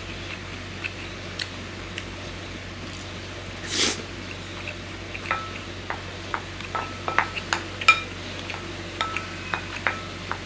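Metal spoon scraping and clinking against a ceramic bowl while scooping up the last of a rice-and-egg dish: light clinks, some ringing briefly, scattered at first and coming thicker in the second half. A short breathy noise about four seconds in.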